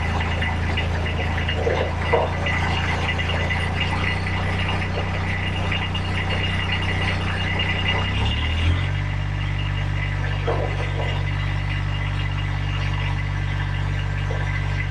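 An engine running steadily, its low hum changing pitch once about eight and a half seconds in, with a few light knocks over it.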